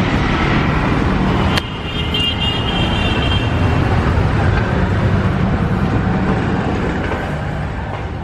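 Road traffic noise: vehicle engines and tyres running steadily, with an abrupt change in the sound about a second and a half in.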